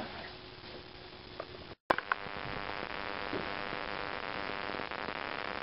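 Quiet room tone with a few faint taps. About two seconds in the sound cuts out briefly, a click follows, and then a steady electrical buzz runs on without change.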